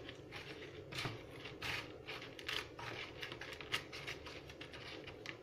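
Crushed Doritos tortilla chips crackling and crunching as a chicken tender is pressed and turned in them by hand: a run of small, irregular crackles.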